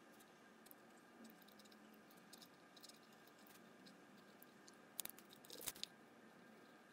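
Near silence with faint scratches and ticks of a pen writing on paper, a few louder ticks about five seconds in.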